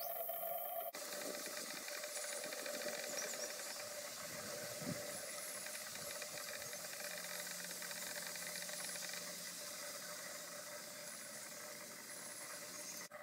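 A steady hiss with a few faint, high, thin bird calls over it, and one short knock about five seconds in.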